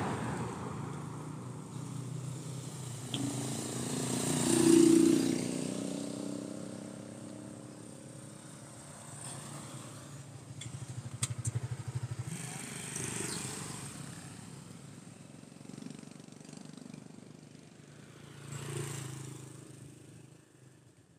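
Road traffic passing close by: several vehicles go by one after another, each swelling and fading, the loudest about five seconds in with its engine clearly heard.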